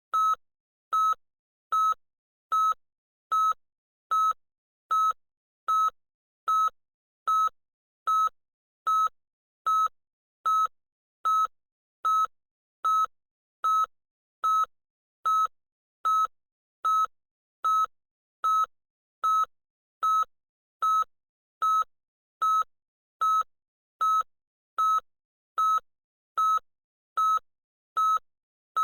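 Electronic beeper giving short, high single-pitched beeps at an even pace, a little more than one a second, with no change throughout.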